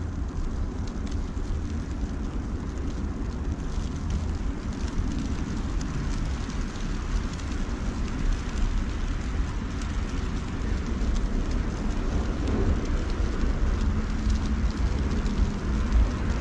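Steady outdoor ambience during a snowfall: a low rumble with an even hiss and fine ticking on top, and a faint low hum joining near the end.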